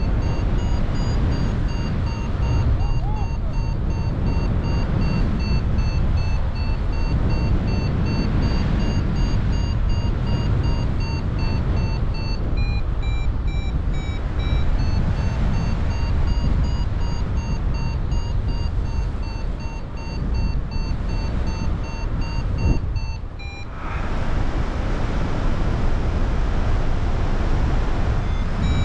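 Wind rushing over the microphone of a paraglider in flight, with a variometer beeping in quick pulses whose pitch steps up and down: the climb tone, signalling that the wing is rising in lift. The beeps drop lower in pitch for a couple of seconds about halfway, and the sound falls away briefly about three quarters through.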